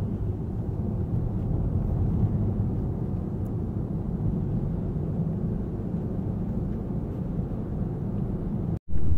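Steady low road and engine rumble of a Honda Stepwgn Spada on the move, heard from inside the cabin. The sound cuts out for a split second near the end.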